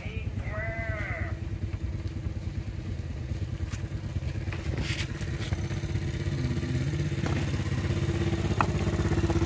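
A motorcycle engine running steadily with a fast low pulse, growing louder toward the end. A short wavering high call is heard about half a second in.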